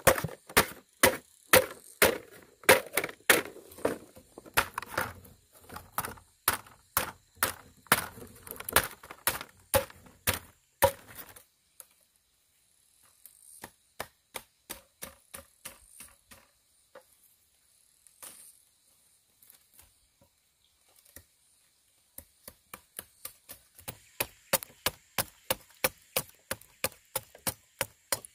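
Machete chopping repeatedly into a green bamboo culm laid on a wooden beam, splitting it lengthwise into strips to open it out flat. Sharp strikes come about two to three a second, turn softer and sparser for several seconds midway, then pick up again faster near the end.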